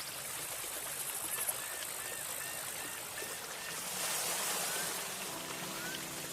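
Steady rushing of running water, with a row of faint short chirps about two seconds in and quiet musical notes coming in near the end.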